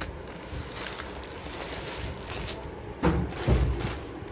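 Plastic grocery packets rustling and crinkling as they are handled and sorted, with a couple of dull thumps about three seconds in.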